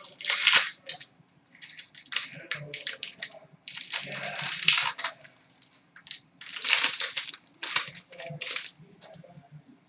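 Hockey card pack wrapper being ripped open and crinkled by hand, then cards handled, in irregular crackly bursts; the loudest come about half a second in and again around the middle.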